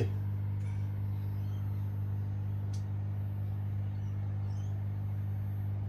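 Steady low electrical hum with a few fainter higher overtones, and one faint click about three seconds in.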